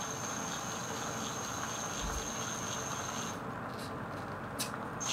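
High, thin, steady whine of a brushless outrunner motor (Injora Fat Viper) driving an Axial SCX24 micro crawler at low throttle. It stops about three seconds in, and a couple of faint clicks follow.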